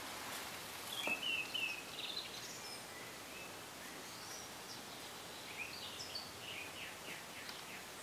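Faint birdsong: a few short chirps about a second in and a run of chirps near the end, over a steady background hiss.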